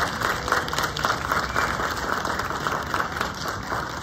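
Audience and seated concert band applauding, a dense patter of many hands clapping that thins out near the end.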